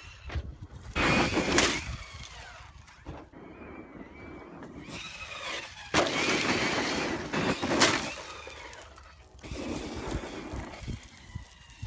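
Losi XXL2-E 1/8-scale electric monster truck's brushless motor whining up and down in three bursts of throttle, its tyres crunching and spraying loose gravel. The loudest burst starts abruptly about six seconds in.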